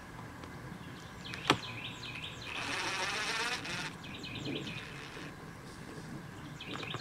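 Cordless drill running for about a second and a half on the screws of a wooden nuc box lid, with a sharp click shortly before it. Birds chirp around it.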